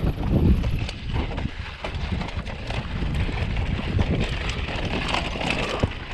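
Mountain bike riding down a rough dirt and rock trail: tyres rolling over dirt and stones while the bike rattles and clatters over bumps in a quick run of knocks, with wind rumble on the camera microphone.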